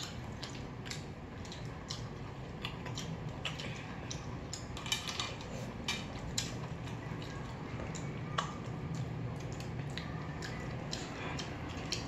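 Spoons and other cutlery clinking and scraping against bowls and plates while eating: a string of irregular sharp clicks and taps.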